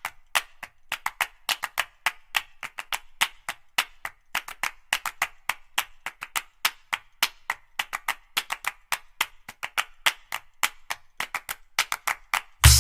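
Rhythmic clapping-style percussion, a quick steady run of sharp claps or clicks with no bass, opening a music track. A full beat with heavy bass comes in right at the end.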